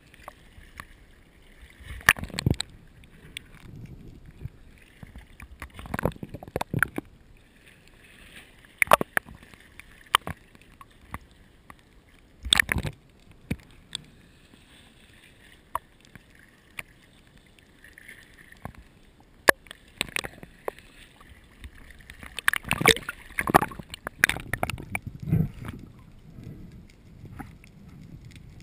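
A GoPro recording underwater picks up irregular sharp clicks and knocks, coming in several clusters that are busiest near the end, over a faint steady water hiss.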